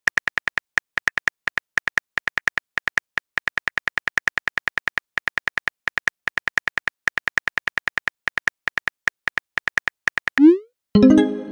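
Simulated phone-keyboard typing clicks, several a second, as a chat message is typed out letter by letter. About ten seconds in comes a quick rising swoosh as the message is sent, then a short ringing tone that dies away.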